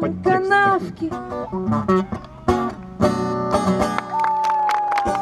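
Acoustic guitar strummed under a live sung bard song, with a strong strummed chord about three seconds in. Near the end the voice holds one long high note that sinks slightly in pitch.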